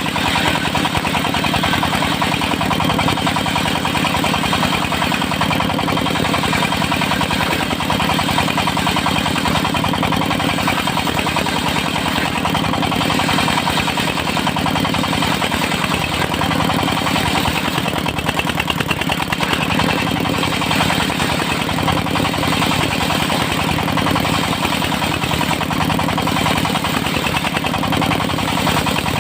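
Engine of a portable circular-saw sawmill running steadily with a fast, even pulse.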